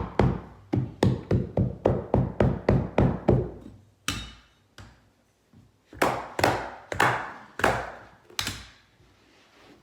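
Hammer tapping, about three quick taps a second for a few seconds, then a handful of slower, spaced blows.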